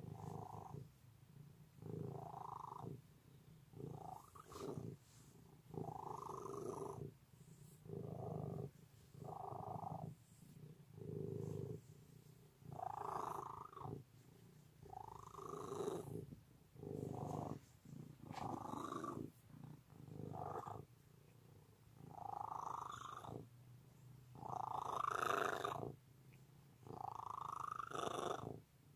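Hairless Sphynx cat purring as it is stroked. The purr swells and fades with each breath, about every one to two seconds.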